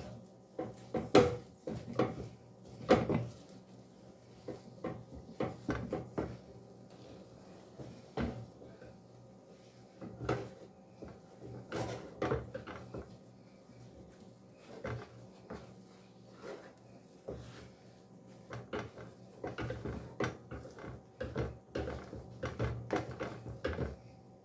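Wooden spoon stirring and turning stiff cornmeal in a pot, knocking and scraping irregularly against the pot, with the loudest knocks in the first few seconds. The cornmeal is being worked so no dry spots remain.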